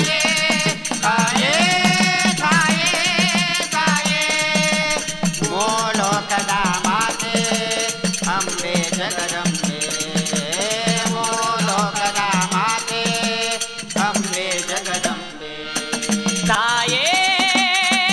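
Instrumental interlude of a Kannada devotional bhajan: a lead melody with sliding, wavering notes over a steady hand-drum beat and continuous rattling hand percussion. The music drops back briefly about fifteen seconds in.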